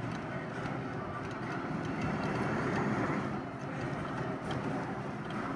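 Steady background noise of a toy-shop arcade among the claw machines, with a few faint clicks.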